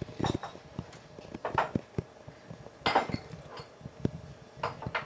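A CD jukebox's disc-changer mechanism clicking and clunking a few times at uneven intervals as it selects a disc.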